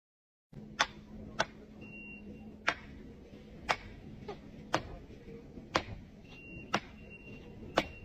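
Sharp clicks or knocks repeating about once a second, evenly spaced, over a faint steady hum.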